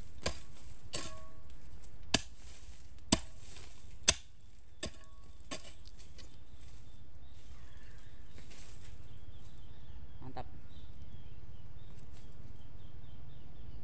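Hoe blade chopping into dry, stony soil to dig planting holes: sharp strikes about once a second, some with a brief metallic ring. The strokes stop about five seconds in, leaving a low steady background.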